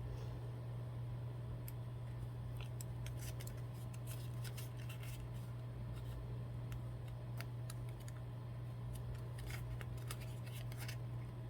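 Scattered light clicks and snips from hand work with small craft tools on a cut vinyl label, over a steady low hum.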